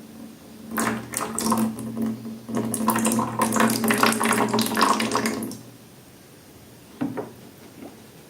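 Liquid pouring and splattering into a container for about five seconds, with a low steady hum under it, then a short wet squelch near the end.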